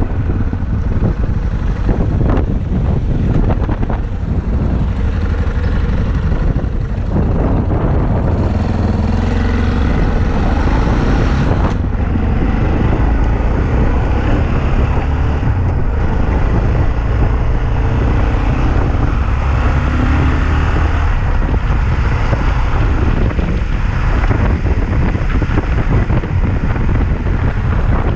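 Yamaha XT660Z Ténéré's single-cylinder engine running under way, its pitch rising and falling a little with speed, with wind rushing over the microphone.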